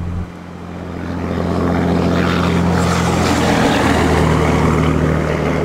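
A vehicle engine running with road and wind noise, swelling over the first couple of seconds as it speeds up. The engine note steps slightly lower a little under four seconds in.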